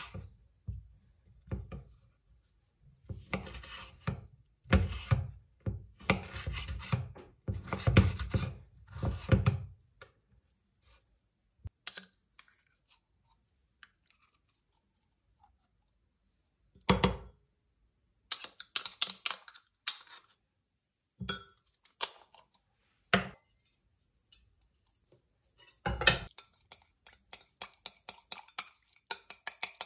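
A kitchen knife slicing tomato on a wooden cutting board, a run of strokes for the first ten seconds or so. Then a metal spoon scrapes and taps in an opened tin of tomato paste, with a couple of sharp knocks. Near the end the spoon stirs the paste in a cup, clinking rapidly and regularly against its sides.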